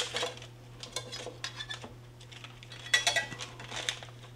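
Metal spatula and serving fork clicking and scraping on a sheet pan while lifting baked fillets off the parchment, in short irregular clatters. The loudest clatter comes about three seconds in.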